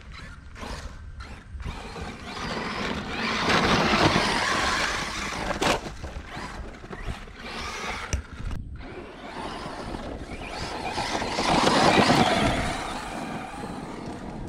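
ARRMA Mojave RC truck's brushless electric motor running at speed while its tyres churn through loose dirt as it is driven around. It swells loud twice as it passes close, about four seconds in and again around eleven to twelve seconds.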